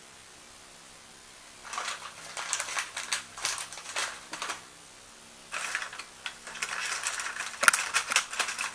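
Metal parts clinking and rattling as the plates and loose hardware of an HHO generator cell are handled and fitted, in two spells of quick clicks starting about two seconds in, with one sharper knock near the end.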